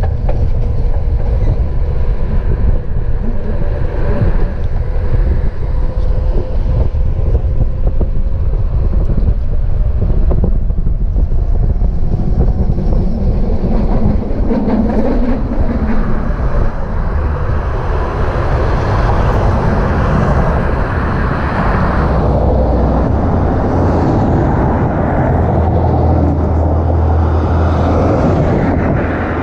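Budapest tram running along its line, heard from aboard: a steady rumble of wheels on rail with motor and running noise, and a faint thin whine over it during the first several seconds.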